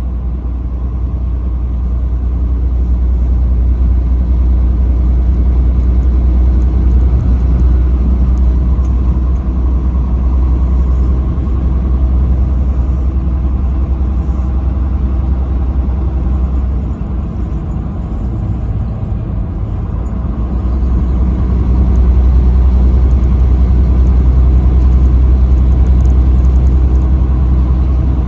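Steady low rumble of a truck driving at highway speed, engine and road noise, easing briefly about two-thirds of the way through.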